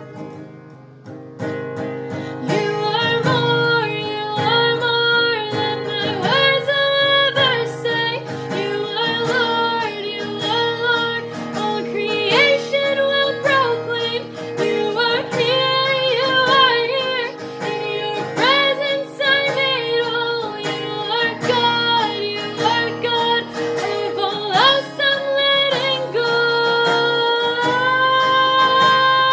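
Contemporary worship-band music: a gliding lead melody over guitar accompaniment, building up about two seconds in.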